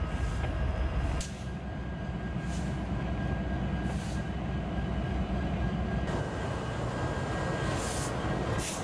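Freight locomotives led by a Norfolk Southern EMD SD60E rolling slowly past close by: a steady low diesel engine drone with steel wheels on rail and a faint steady whine. A few brief high hissing bursts come through along the way.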